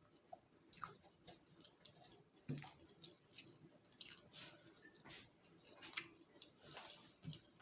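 A person chewing food close to the microphone: soft, irregular wet mouth smacks and clicks.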